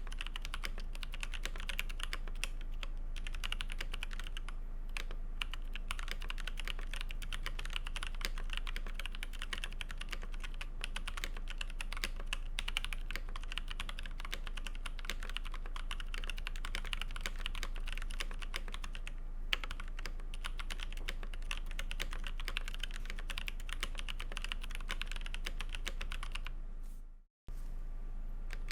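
Fast, continuous typing on a mechanical keyboard with lubed Kailh Polia tactile switches in an aluminium plate and GMK keycaps. Near the end the typing fades out, cuts off for a moment, then starts again.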